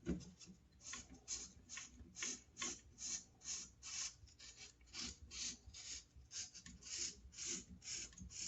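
Fine 1200-grit sandpaper scraping on the copper commutator of a Skil 1825 router's motor armature, in quiet rhythmic strokes about two to three a second. The sandpaper is cleaning corrosion and carbon buildup off the surface where the brushes make contact.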